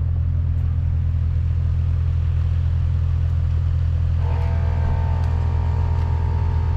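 Jeep driving on a snowy road, with a steady low engine and road drone heard from inside the cab. About four seconds in, a steadier, higher hum joins it.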